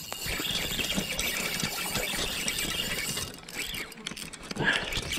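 Shimano Twin Power spinning reel worked against a hooked asp. A dense rasping whir of reel and line with fine ticking runs for about three seconds, then come two short squeals.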